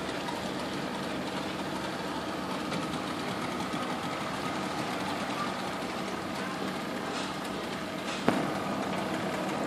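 Taxi boat's engine running steadily, with a sharp knock about eight seconds in.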